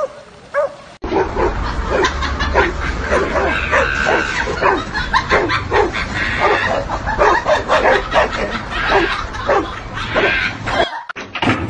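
Dogs barking over and over, a few barks a second, starting abruptly about a second in.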